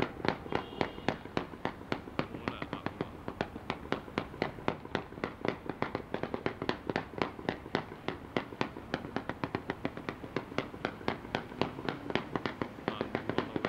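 Fireworks display: a rapid, unbroken run of bangs and cracks from bursting shells, about five or six a second.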